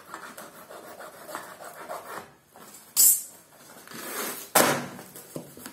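Cardboard and paper rubbing and scraping as hands work at a tightly packed carton of paperback books. There are two sharp, loud cracks of cardboard, about three seconds in and again a second and a half later.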